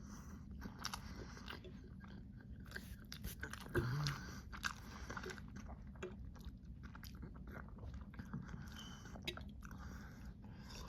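Close-up mouth sounds of someone eating a donut: chewing and biting with many small wet clicks. There is a brief louder moment about four seconds in.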